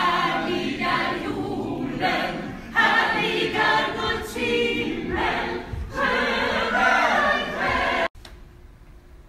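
A small group of voices singing together in chorus. The singing cuts off suddenly about eight seconds in.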